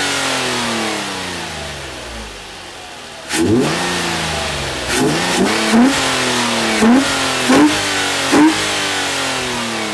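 Nissan Altima 3.5 coupe's VQ35DE V6, fitted with a K&N Typhoon cone-filter intake and a Nismo cat-back exhaust, free-revving with the hood up, heard close to the open intake filter. The revs sink slowly toward idle over the first three seconds, then come about six quick throttle blips, each rising sharply and falling back.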